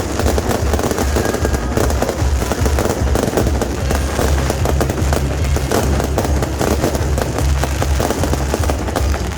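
Beehive rocket fireworks (蜂炮) firing in a dense, continuous barrage of rapid pops and crackles that runs without pause.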